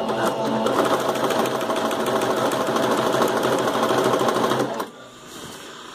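Sewing machine running steadily at speed, stitching through fabric in a fast, even stream of needle strokes, then stopping about five seconds in.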